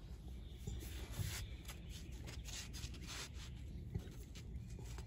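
Faint rubbing of a cloth towel along the steel handle of an old Estwing hatchet as it is wiped down, in quick repeated strokes.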